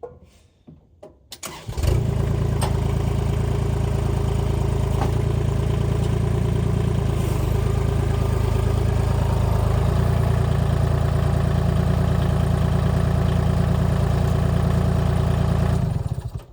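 Kubota L2501 tractor's three-cylinder diesel engine starting about two seconds in and then idling steadily without revving, until it stops shortly before the end.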